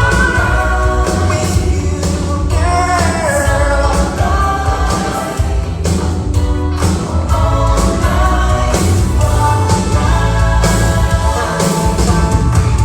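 Pop music with singing and choir-like backing vocals over a steady beat.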